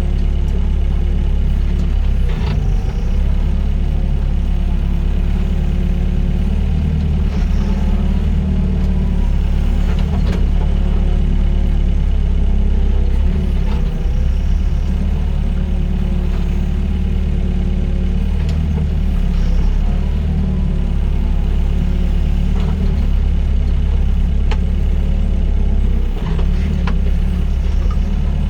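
Doosan DX55 mini excavator's diesel engine running steadily while it works, with a tone that wavers up and down as the arm and bucket move, and a few sharp knocks along the way.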